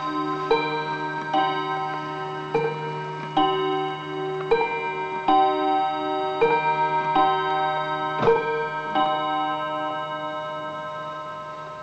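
Art Deco mantel clock's three-hammer, eight-day striking movement chiming the hour: hammers strike about once a second, each leaving several notes ringing on. The last strike comes about nine seconds in and the ringing dies away.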